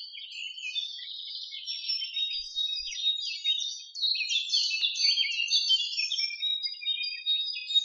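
A dense chorus of small birds chirping and twittering, many short overlapping calls and quick whistles, briefly dipping and then growing louder about four seconds in.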